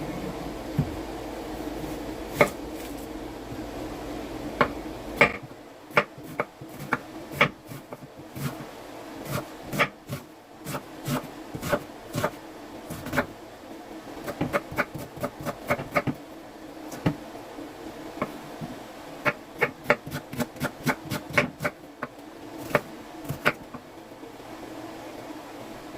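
Irregular sharp clicks and knocks of kitchen items being handled on a counter, over a steady hum that drops in level about five seconds in.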